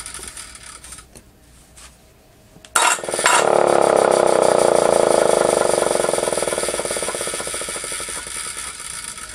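Federal Model 2 air raid siren starting suddenly about three seconds in and sounding a steady tone, which fades gradually through the last few seconds as the rotor winds down. The siren is running on direct current after a repair of its shorted stator windings.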